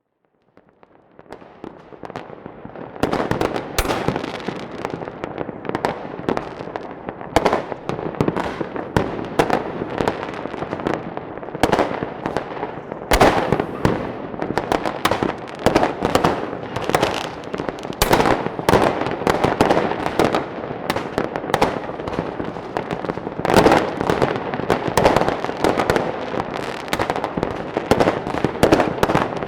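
A fireworks display: a dense, continuous barrage of bangs and crackling firecrackers. It fades in over the first few seconds, with several louder bangs standing out above the crackle.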